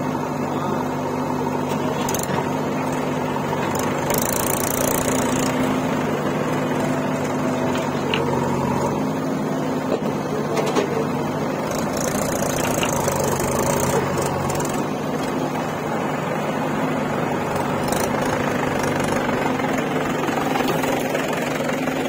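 Diesel engines of a JCB 3DX backhoe loader and a farm tractor running steadily, with two short spells of high hiss.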